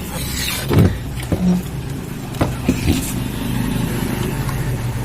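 Steady low hum with a handful of sharp clicks and knocks in the first three seconds, from small tools and parts being handled while a capacitor is swapped on a TV circuit board.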